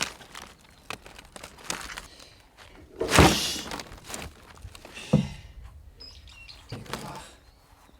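Crisp tearing and crunching of large outer leaves being stripped off a giant napa cabbage. The loudest moment is a heavy thump about three seconds in, with shorter rips near five and seven seconds.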